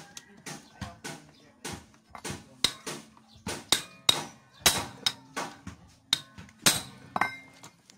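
A manual impact driver being hit with a metal pipe to break loose a stuck Phillips screw. The blows are sharp and metallic, about two a second, some ringing briefly, and they are hardest between about four and seven seconds in.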